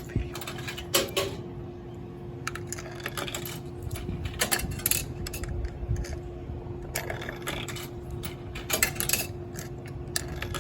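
Coins fed one at a time into a soda vending machine's coin slot, clinking and dropping inside the mechanism at irregular intervals, over a steady hum.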